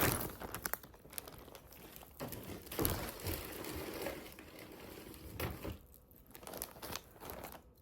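Packaging crinkling and rustling as it is handled, in uneven spurts, quieter near the end.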